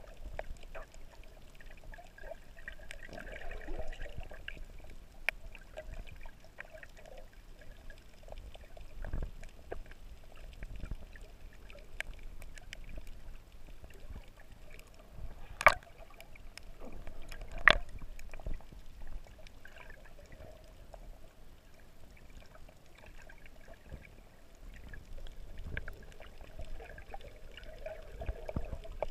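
Water moving around a camera held underwater, with two sharp clicks about two seconds apart near the middle.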